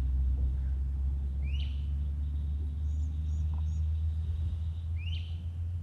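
Birds calling: two rising, upslurred calls about three and a half seconds apart, with three short high chirps between them, over a steady low rumble.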